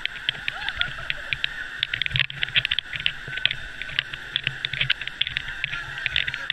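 Wave-pool water splashing and slapping close by, heard as a quick, irregular patter of small ticks over a steady hiss.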